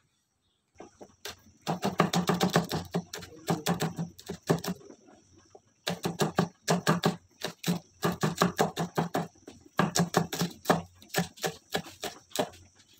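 Knife chopping garlic and green chillies on a wooden cutting board: quick, rhythmic taps of the blade against the board, several a second, in runs with brief pauses. It starts about a second in.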